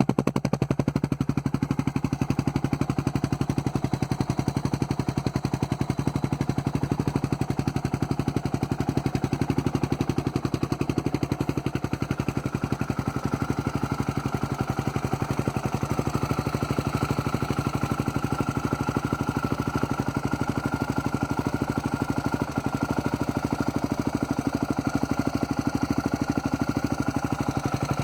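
Yamaha Raptor 660R ATV's single-cylinder four-stroke engine running at a steady idle, an even, rapid exhaust beat.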